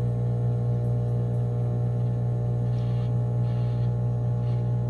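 Microwave oven running: a steady electrical hum with a mains buzz.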